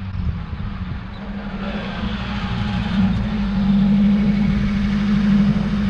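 A 1969 Toyota Corona with a swapped-in 1985 Toyota 4A-GE twin-cam four-cylinder, growing louder as it drives up and pulls in close. About two seconds in, the engine settles into a steady low note.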